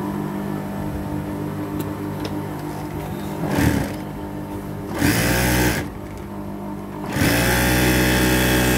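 Juki industrial sewing machine test-stitching after a new needle bar and hook were fitted. The motor hums steadily, and the machine runs up to speed in three bursts: a brief one about three and a half seconds in, another of about a second near the five-second mark, and a longer run starting about seven seconds in.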